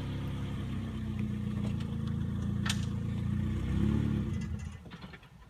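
1990 Honda Prelude's engine running as the car pulls away at low speed. Its note swells briefly about four seconds in, then dies away near the end as the engine stalls. A single sharp click is heard midway.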